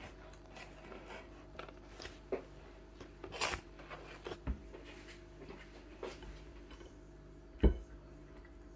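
Scattered light knocks and rustles of hands and objects moving on a kitchen counter, over a faint steady hum. There is one loud thump near the end, as hands reach in to take hold of a fish on the plate.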